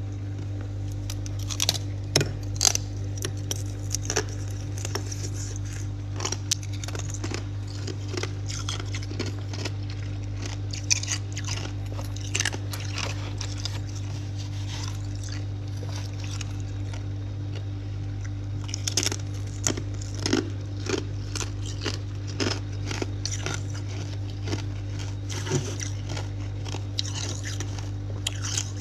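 Frost and ice being bitten and chewed, with many sharp irregular crunches that come in clusters.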